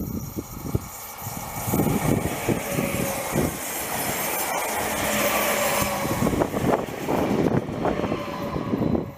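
Two coupled Škoda RegioPanter electric multiple units passing close at speed. The rush of the train builds over the first couple of seconds, holds as the cars go by, and drops away suddenly near the end as the last car clears.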